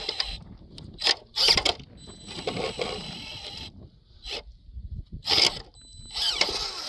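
Small RC crawler's electric motor and plastic gearbox whirring in about six short bursts of throttle as the rig tries to climb a rock.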